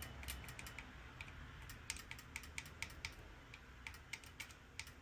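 Faint, irregular quick clicks, several a second, from a small relay on an espresso machine's control board. The clicks come as 12 V DC is tapped repeatedly onto its coil, showing the coil pulls in.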